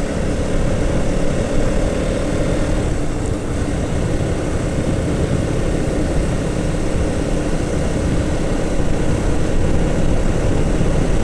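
Motorcycle engine running steadily while riding, with a constant engine drone and wind rushing over the microphone.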